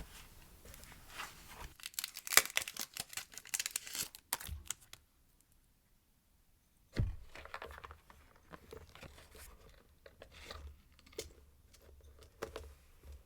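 Paper and packaging being handled: rustling and crinkling with scattered sharp taps, falling silent for a couple of seconds about five seconds in, then a soft thump and more quiet rustling.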